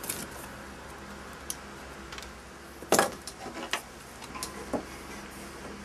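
Scattered knocks and clicks of carpentry work on wood board, with one loud knock about three seconds in.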